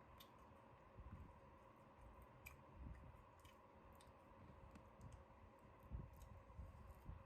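Near silence, with faint, irregular clicks and a few soft low thumps.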